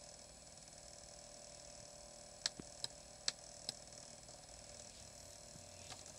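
A quick run of sharp plastic button clicks about halfway through, as a portable DVD player's menu is navigated, over a steady faint electronic whine.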